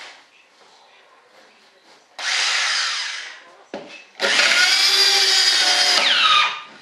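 Electric jigsaw cutting through the cured resin-and-glass-cloth edge of a composite mold: a short burst about two seconds in, then a longer cut from about four seconds in that winds down with a falling whine near the end.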